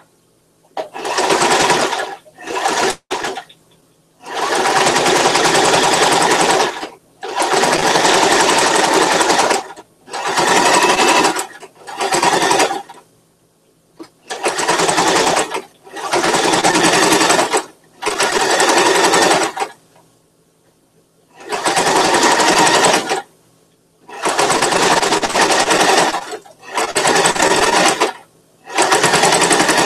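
Electric household sewing machine stitching fabric in short runs of one to three seconds, stopping and starting about a dozen times as the seam is guided through.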